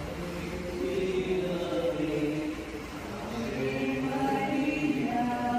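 Voices singing a slow devotional chant, drawing out long held notes.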